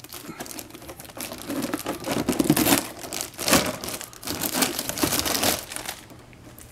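Plastic wrapping crinkling and rustling in irregular bursts as it is handled, dying down near the end.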